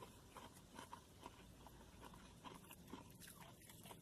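Faint chewing with small irregular crunches and clicks of a person eating food close to the microphone.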